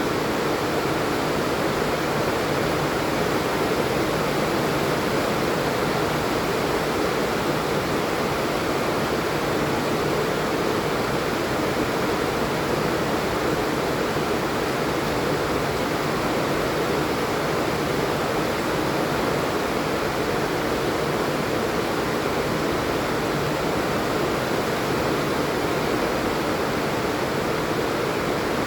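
Steady, even rain falling, a constant hiss with no single drops or thunder standing out.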